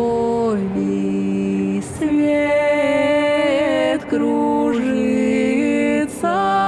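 Several voices singing a cappella in close harmony, with no instruments: long held chords that shift to new notes every second or two.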